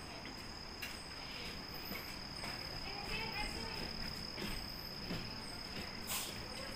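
A steady, high-pitched insect drone, with faint voices in the background and a short sharp noise near the end.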